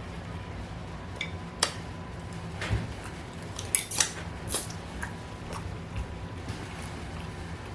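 A handful of scattered light clicks and taps of cutlery against dishes, spaced irregularly over several seconds.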